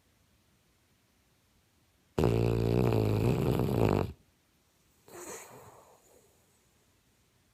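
A sleeping pet snoring: one loud, pitched snore lasting about two seconds begins about two seconds in, followed a second later by a softer, shorter breath out.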